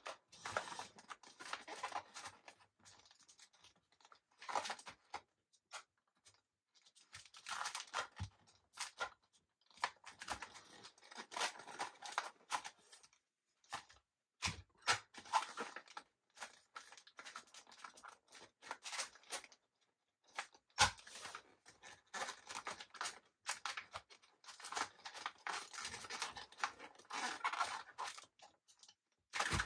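Foil snack bag crinkling and rasping in stop-start runs as its sealed top is worked through the rollers of a paper crimper. A few sharp knocks are heard; the loudest comes about two-thirds of the way through.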